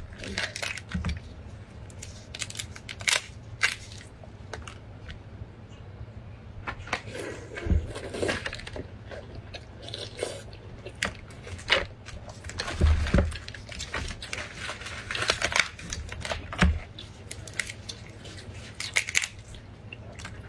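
Close-miked eating of meat: irregular bites, chewing and crunching, with sharp clicks and smacks scattered throughout and louder bursts of crunching now and then.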